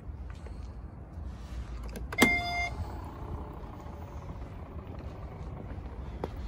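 Tesla Model S power liftgate at work: a click and a short electronic beep about two seconds in, then its strut motors running with a low steady hum. The motors run without whining, a sign they are healthy.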